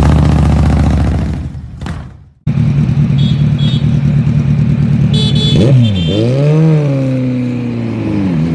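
A Harley-Davidson Road Glide's V-twin pulls away and fades out. After a cut, a Kawasaki sport bike with twin exhausts runs steadily, then is revved as it rides off, its pitch rising and falling twice.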